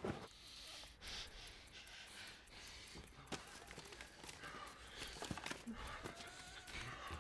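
Paper envelopes and letters rustling and shuffling as they are handled, with soft scattered clicks and a man breathing.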